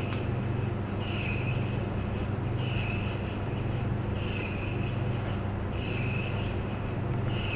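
Clothes dryer running: a steady low hum, with a higher swishing note that comes round about every second and a half.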